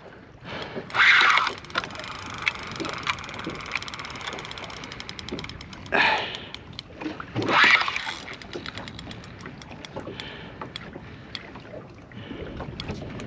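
Water splashing and lapping around a small boat, with three louder splashes: about a second in, at about six seconds and near eight seconds. Light ticking runs underneath.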